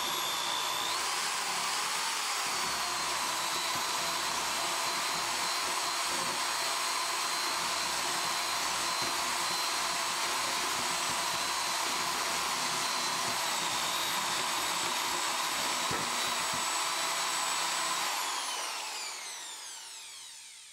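Electric drill turning a Jiffy mixer paddle in a container of glaze slurry, running at a steady speed with a high whine. About 18 seconds in it is released and spins down, its whine falling in pitch until it stops.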